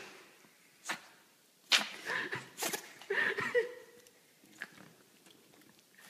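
Small dog sneezing in a quick run, about four short sharp sneezes in the first three seconds, the loudest about two seconds in.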